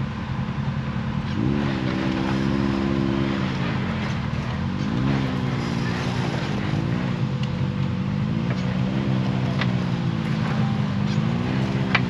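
Side-by-side UTV engine running at low speed and being revved up and down several times as it crawls over a deep rut on a dirt trail.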